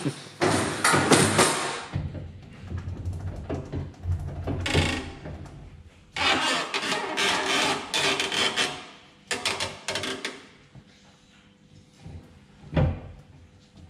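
Metal clanks and chain rattles as an engine block is chained down in a honing machine, coming in irregular bursts. A low hum runs for a few seconds after the first burst, and one sharp knock comes near the end.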